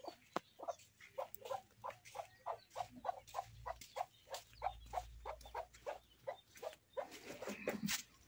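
A farm animal making short calls over and over, about three or four a second, with a louder rustling noise near the end.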